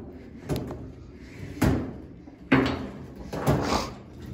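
Four separate sharp knocks a second or so apart, the loudest about halfway through.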